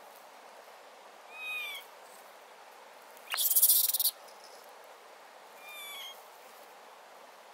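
A bird calls twice, each a short call about half a second long, some four seconds apart. Between the calls comes a sudden sharp click and then a loud hissing rush of under a second, the loudest sound here.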